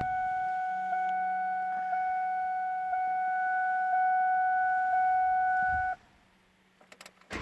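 A steady, high dashboard warning tone with a faint tick about once a second sounds for about six seconds with the ignition on, then cuts off. Near the end the Taurus's OHV V6 cranks and starts.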